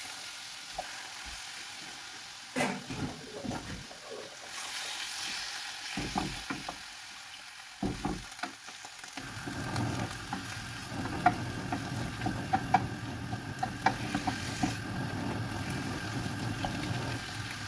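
Pieces of pork sizzling in a nonstick frying pan, stirred with a wooden spatula that knocks and scrapes against the pan. The frying grows fuller about halfway through.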